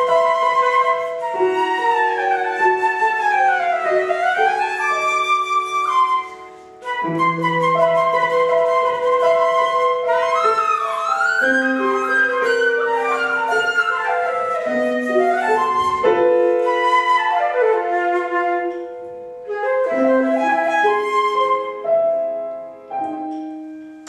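Concert flute playing a melody with fast runs down and back up, accompanied by grand piano. The music breaks off briefly about six seconds in and tapers away near the end.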